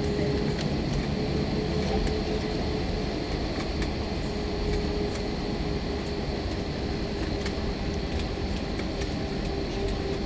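Airbus A321 cabin noise while taxiing: the jet engines running at low thrust give a steady hum with a steady mid-pitched tone on top, and faint light clicks come and go.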